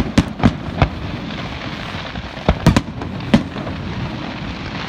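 Fireworks bursting in the sky: sharp bangs in two irregular groups, four in quick succession at the start and another three or four between two and a half and three and a half seconds in.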